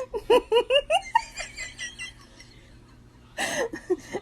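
A person laughing: a quick run of rising, pitched bursts that trails off, then a fresh outburst of laughter near the end.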